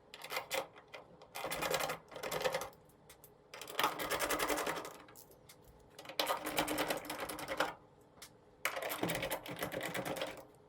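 Power screwdriver or drill/driver running in short bursts with a rapid mechanical clatter, backing out the screws along the top of a Samsung dryer's front door panel. There are four longer runs with shorter blips between them.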